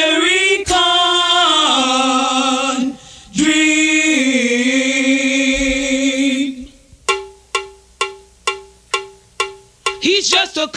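A choir sings long held "Amen" chords with vibrato, breaking off briefly about three seconds in. Near the end this gives way to a run of about eight struck notes on one pitch, about three a second, each ringing and fading.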